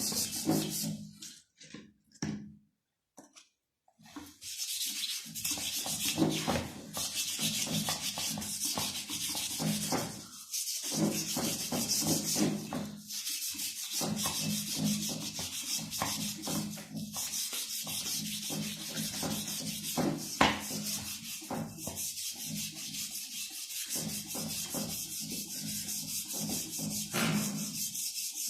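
Red polishing compound being rubbed by hand onto a CG 125 motorcycle's rear wheel hub, a continuous scrubbing of many quick strokes. It stops for a couple of seconds near the start, then goes on.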